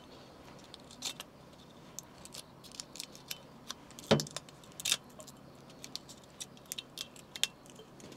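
Small metallic clicks and rattles of a metal screw cap being twisted and fumbled on a bottle of kaoliang liquor, with two louder knocks about four and five seconds in.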